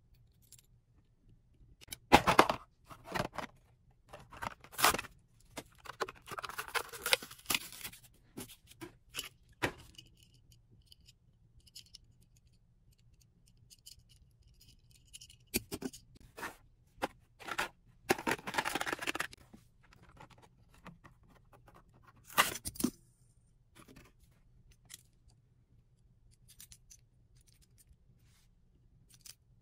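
Toy car packaging being handled and opened: irregular bursts of scraping, tearing and sharp clicks from cardboard and plastic, with quiet pauses between.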